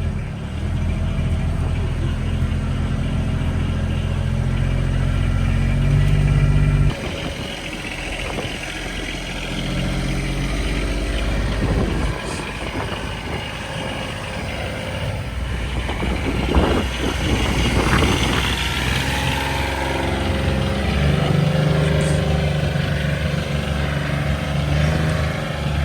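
A vehicle's engine running, its pitch and level shifting several times as it revs up and down.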